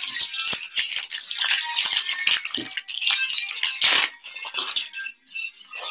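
Foil wrapper of a 2020 Bowman Jumbo baseball card pack being torn open and crumpled by hand: a dense crackling rustle full of small sharp clicks, with the loudest crackle about four seconds in.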